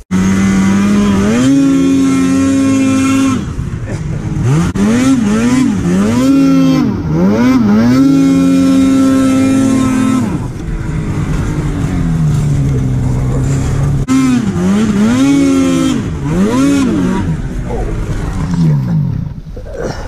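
Snowmobile's two-stroke engine revving hard while riding deep powder. It is held at high revs for a few seconds at a time, with quick up-and-down throttle blips in between, and the revs fall away near the end.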